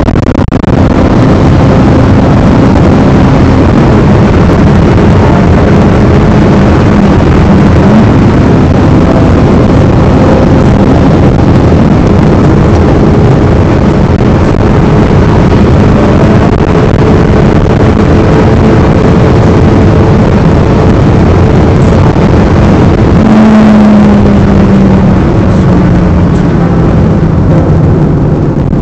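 Loud, steady car engine and road noise heard from inside the cabin at speed through a dashcam's microphone. About 23 seconds in, the engine note jumps up and then slowly falls.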